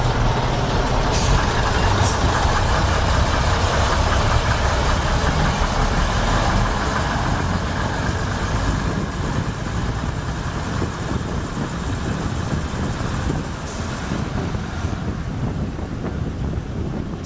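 Class 121 'bubble car' diesel railcar pulling out along a platform, its underfloor diesel engines running under power with steady wheel and rail noise, heard loud through an open window. A few sharp clicks come from the running gear along the way.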